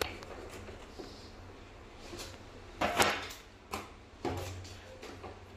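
Pipe wrench working a flare nut on a split AC indoor unit's quarter-inch copper line as the joint is tightened: a few short metallic clicks and knocks, the loudest about three seconds in.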